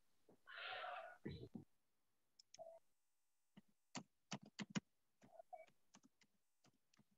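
Faint typing on a computer keyboard: scattered single keystrokes clicking, most of them in the second half, after a short breathy hiss about half a second in.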